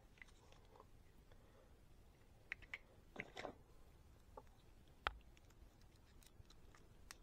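Faint, scattered clicks and taps of small metal driver parts being handled: a Wera Rapidaptor bit adapter being fitted into a small bit-driver handle. The sharpest click comes about five seconds in.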